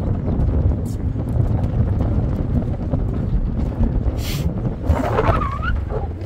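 Strong wind buffeting the microphone in a steady low rumble, with a couple of brief gusty hisses and a short rising squeak about five seconds in.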